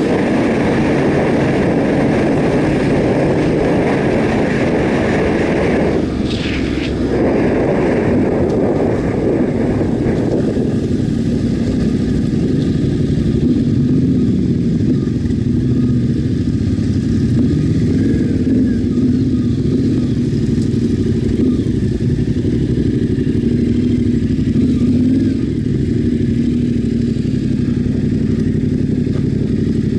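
Yamaha Ténéré 700's parallel-twin engine running under the rider, with wind rush at road speed. About ten seconds in, the wind noise drops away as the bike slows, leaving the engine running steadily at low speed.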